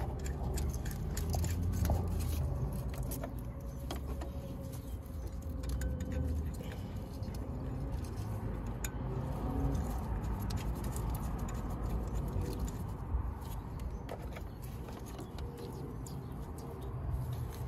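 Scattered light metallic clicks and clinks of hand tools and parts being handled, over a steady low hum.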